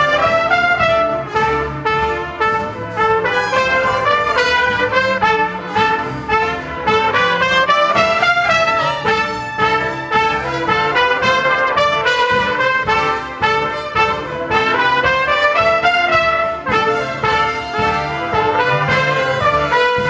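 A group of trumpets playing together, a busy melody of quickly changing notes over a held lower note.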